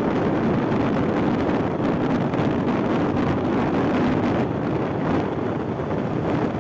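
Wind buffeting the microphone: a loud, steady, rumbling rush of wind noise with no voices over it.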